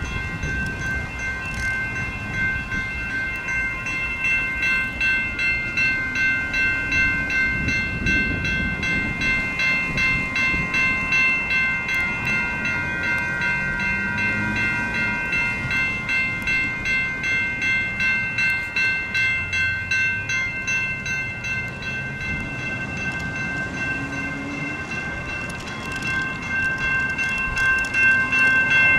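Railroad crossing warning bells ringing in a fast, steady pulse, with several bells overlapping as the crossing signals flash. They grow louder near the end, over a low rumble of passing road traffic.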